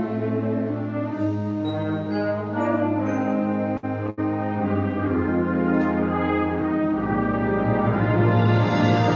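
School concert band playing a held, chordal passage led by brass, with horns and trombones prominent. A deep bass note comes in about seven seconds in.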